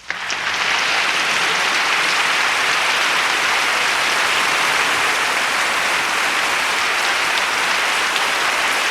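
A steady, even rush of hiss-like noise that starts abruptly, with no clear pitch or rhythm.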